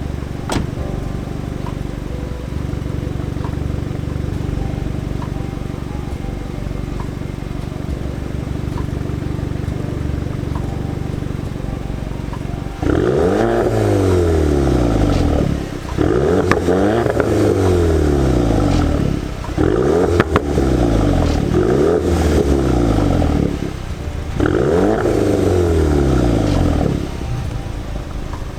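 Factory non-OPF exhaust of a VW Polo GTI (AW) with its 2.0-litre turbocharged four-cylinder idling steadily, then revved repeatedly from about halfway, each rev rising and falling in pitch over a couple of seconds.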